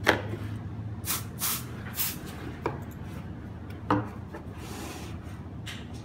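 Cardboard box being handled and folded shut over a smoke detector: a sharp knock at the start, then scraping and rubbing of the cardboard flaps with a few further knocks.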